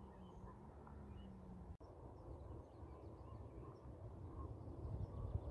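Faint outdoor ambience: a low rumbling noise that grows a little toward the end, with faint, scattered bird chirps. A faint low hum fades out in the first couple of seconds.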